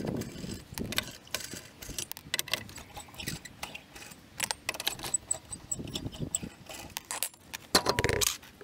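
Small metal parts and tools clinking and rattling as they are handled, in many quick, irregular clicks, with a louder clatter near the end.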